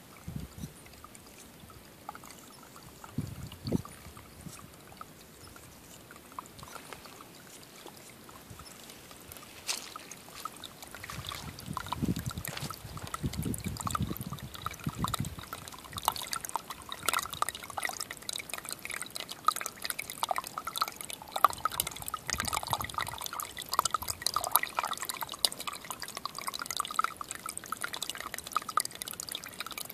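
Rainwater welling up through a small hole in wet ground, gurgling and trickling. It grows louder and busier about ten seconds in. There are a few low rumbles near the start and again around twelve seconds in.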